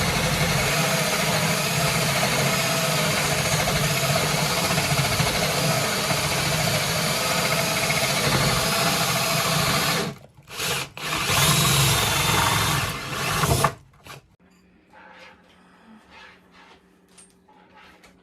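Power drill boring a hole through porcelain countertop tile: a loud, steady grinding with a high whine. It stops about ten seconds in, runs again for about three seconds, then stops, leaving only a few faint clicks.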